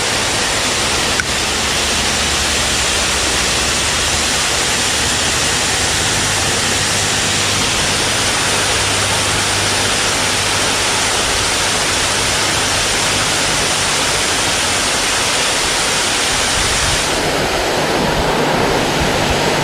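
Steady rushing water of a small creek waterfall, with its tone turning slightly deeper near the end.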